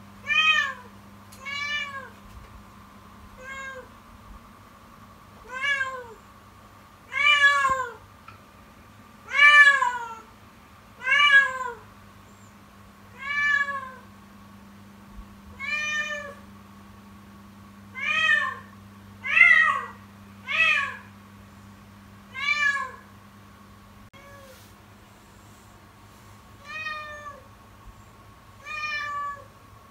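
Spayed kitten meowing loudly over and over, about one long call every one and a half to two seconds, each rising and then falling in pitch. These are the persistent, alarming cries the owner finds startling; as she is spayed, they are not heat calls.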